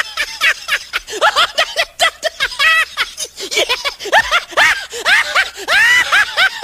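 High-pitched, rapid snickering laughter: many short squeaky giggles that rise and fall in quick succession throughout.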